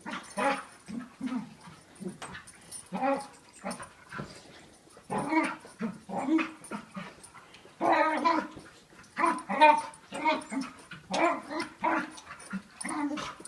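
A dog making weird pitched vocal noises in short, irregular bursts, one or two a second, while play fighting with another dog.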